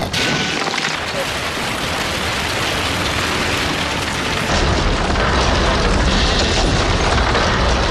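Stone-breaking sound effect: a continuous crashing, crumbling rush of rock, with a heavy deep rumble coming in about halfway through.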